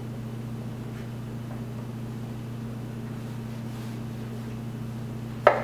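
A steady low electrical hum, with one sharp knock near the end as a santoku knife blade strikes the wooden cutting board while slicing seared tuna.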